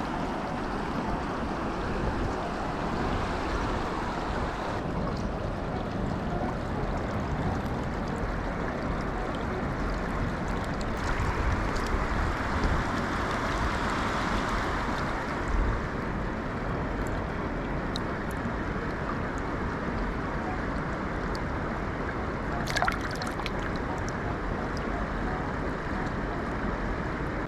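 Steady rush of flowing water, with a couple of brief sharp clicks about halfway through and again near the end.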